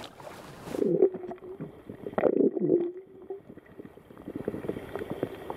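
River water sloshing and splashing in a landing net, then muffled underwater gurgling and bubbling, with a couple of louder bursts about one and two seconds in.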